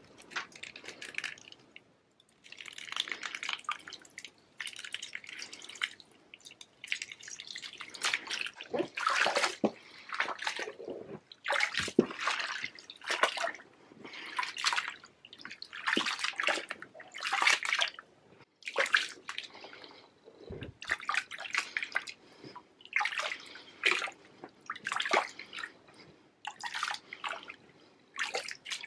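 Bunches of red and white grapes being crushed in a plastic tub by bare feet and hands. The sound is wet squelching and popping of berries and juice, one squelch about every second or so in a steady treading rhythm.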